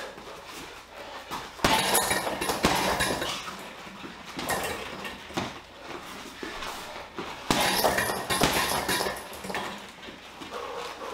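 Boxing gloves striking a Leone heavy bag in combinations: a run of quick thuds, with two heavier flurries about one and a half and seven and a half seconds in.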